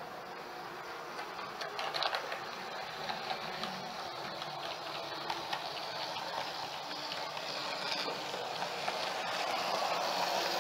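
OO gauge model trains, among them a Hornby Class 110 three-car DMU, running on the layout: a steady hum of motors and wheels on the rails, with many small clicks from the wheels. The sound grows louder as a train comes close.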